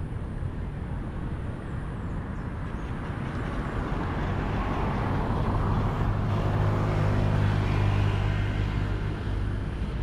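A motor vehicle passing nearby: a low engine hum over a steady rumble, growing louder about four seconds in and easing off near the end.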